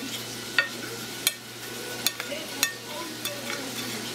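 Hot oil sizzling steadily in a deep fryer, with a sharp crackle about every second.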